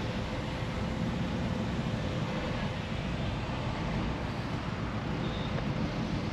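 Steady low mechanical rumble with a faint steady hum.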